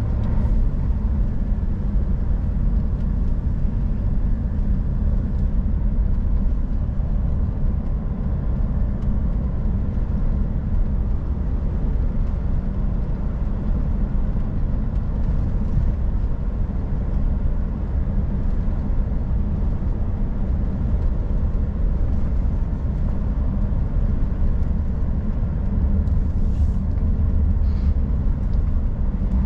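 Scania R440 truck's diesel engine running steadily on the road, a constant low drone with road noise. A couple of faint clicks come near the end.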